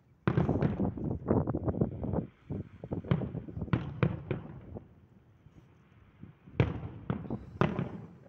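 Aerial firework shells bursting: a dense run of rapid bangs and crackle for about two seconds, then separate sharp reports with short gaps, the loudest about two-thirds of the way through.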